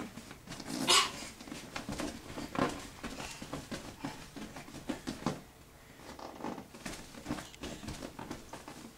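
A toddler moving about in an inflatable bounce house: scattered short bumps and rubbing sounds on the inflated vinyl, the loudest about a second in.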